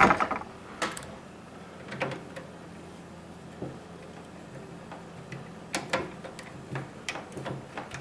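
Hand screwdriver turning a power-supply mounting screw into the metal back panel of a PC case: scattered light metallic clicks and ticks, more of them in the second half.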